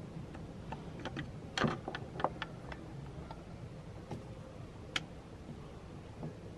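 Light plastic clicks and taps from a car fog lamp unit being handled and turned in the hands, a quick cluster about two seconds in and a single sharper click about five seconds in.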